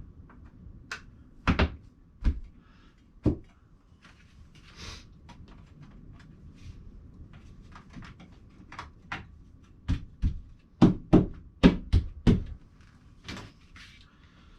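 Poles of a plant-shelf frame being handled and fitted together: sharp knocks, three in the first few seconds, then a quick run of about seven near the end, with light scraping in between.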